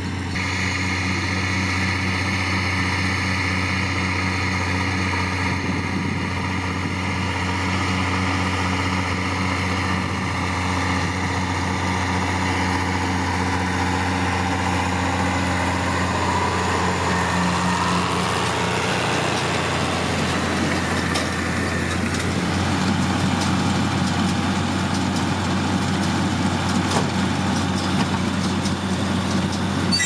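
IHC 1246 tractor's six-cylinder diesel engine running steadily under load while driving a Claas Rollant 46 round baler in hay. About two-thirds of the way through, the sound turns rougher and noisier, and a few knocks come near the end.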